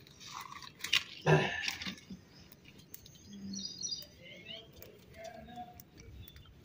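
Short knocks and a loud clatter about a second in as firewood in the stove and a tea tin are handled. Small birds chirp in the background from about three seconds in.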